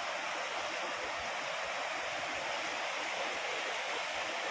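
Steady rushing of a swollen, muddy river in spate: a constant, even hiss of water with no breaks.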